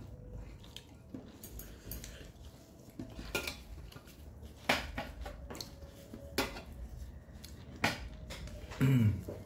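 Fingers scraping and gathering rice on a metal plate, with several sharp metallic clinks against the plate. Near the end comes a short, low sound that falls in pitch, louder than the rest.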